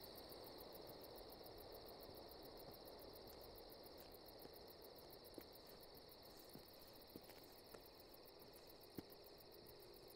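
Near silence with a faint, steady chorus of crickets chirping, and a few soft, scattered ticks in the second half.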